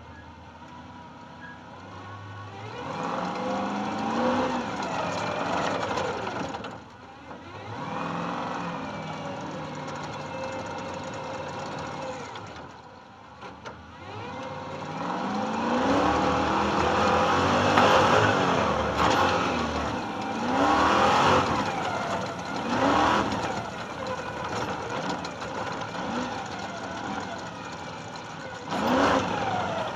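Stadium Super Truck's V8 engine heard from its roof, first running low and steady, then revving and accelerating hard in repeated rising sweeps between lifts off the throttle. It is loudest about halfway through.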